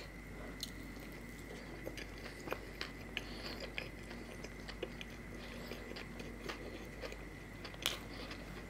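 Close-up sounds of a person eating: chewing and biting, with scattered soft mouth clicks and small crunches.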